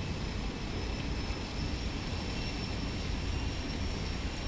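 Water running down a small stepped channel and cascade: a steady rush with a deep rumble underneath.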